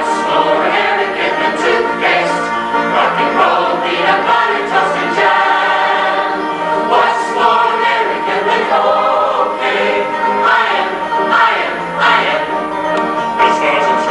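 Women's choir singing in harmony.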